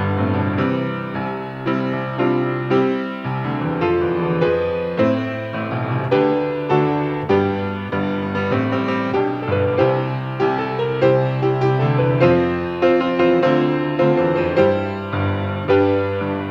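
Instrumental piano music, a gentle piece with notes and chords struck in a steady flowing rhythm.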